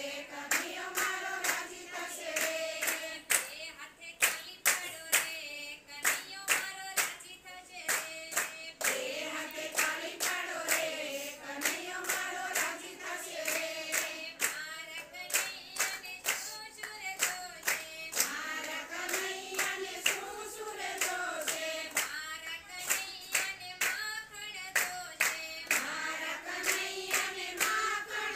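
A group of women singing a Gujarati devotional kirtan together, with hand-clapping in a steady, even rhythm keeping time.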